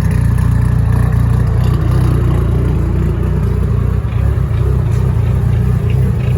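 Dodge Neon SRT-4's turbocharged 2.4-litre four-cylinder running through a 3-inch straight-pipe exhaust as the car drives, a steady low drone with a slight rise and fall in pitch partway through.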